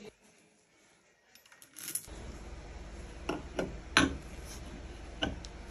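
Metal engine parts clinking as they are handled, a handful of sharp separate clicks and taps over a low steady hum that starts about two seconds in. Nearly silent before that.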